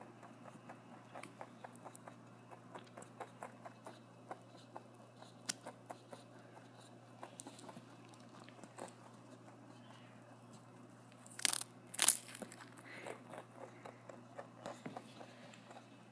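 A lop-eared pet rabbit crunching and chewing a small cracker close to the microphone: a steady run of short crisp ticks, about two or three a second. There are two louder rustling bursts about two-thirds of the way through.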